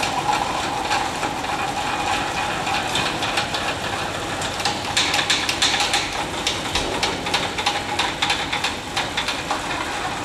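Hand crank turning the corner elevators of a PlasmaCam CNC plasma cutting table, lowering the table: a steady run of small metallic clicks and rattle over a constant hum.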